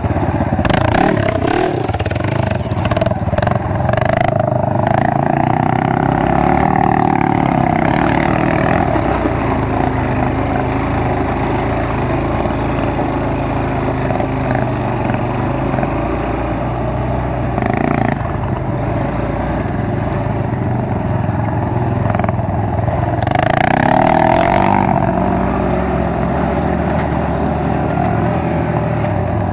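Off-road engines: the quad's engine running under the rider as it is ridden along a dirt trail, revving up and easing off a couple of times, with a dirt bike's engine ahead. A few brief rushes of noise come over the engine sound, the longest about two-thirds of the way through.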